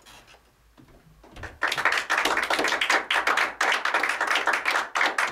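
Theatre audience applauding, breaking out suddenly about a second and a half in as a scene ends.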